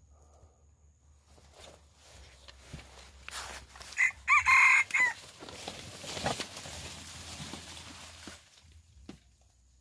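A rooster crows once, loudly, about four seconds in, the call ending in a falling note. A hiss of background noise rises and falls around it.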